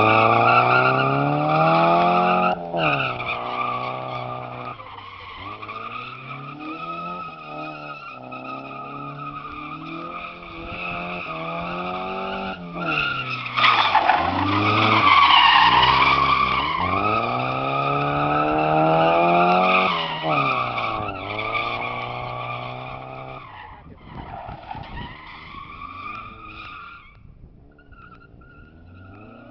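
Mazda MX-5's four-cylinder engine revving up and down over and over while its tyres squeal in long drifts on concrete. The engine and squeal grow loudest about halfway through, then fade as the car pulls away.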